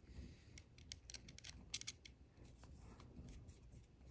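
Near silence with a scattered run of faint small clicks and taps: a plastic receptacle and a screwdriver tip being handled, the tip meeting a brass terminal screw.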